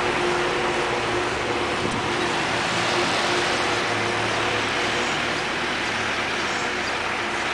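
Steady traffic noise on a wet street, tyre hiss with a vehicle engine running underneath and a faint steady hum.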